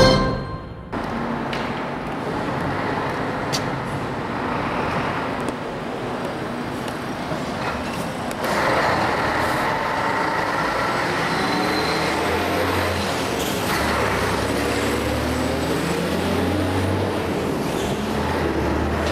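Street traffic noise: motor vehicles running and passing, with a heavy vehicle's low engine rumble coming in past the middle.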